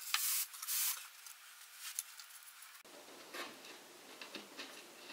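Faint brushing and scraping of hands sliding over laminated particleboard bookcase panels, two short strokes in the first second, then a few light ticks.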